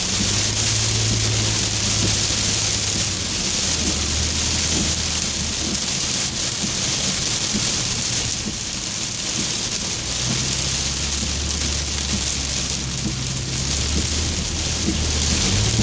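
Heavy rain drumming on a moving car's roof and windshield as a steady hiss, heard from inside the cabin, with the low hum of the car's engine and road noise underneath that shifts in pitch a few times.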